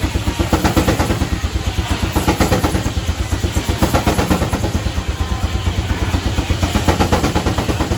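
1912 Case 40 hp steam traction engine running steadily under belt to a sawmill, with a rapid, even beat of several pulses a second.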